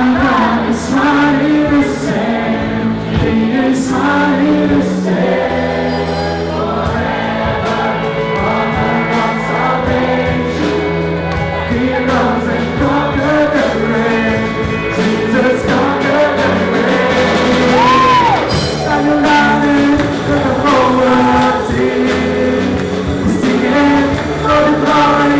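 Live worship band playing a contemporary Christian song: a man sings the lead into a microphone over strummed acoustic guitar, bass and a steady beat, with more voices singing along.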